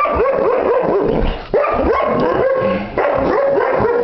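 Irish Setter barking and yipping in a rapid run of short calls, several a second, each dropping in pitch, with two brief breaks.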